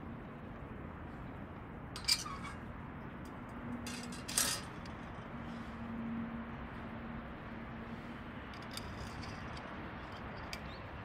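Wood fire burning in a CAGEDBIRD large wood stove under a steady background noise, with a few sharp pops or clinks; the two loudest come about two seconds and four and a half seconds in.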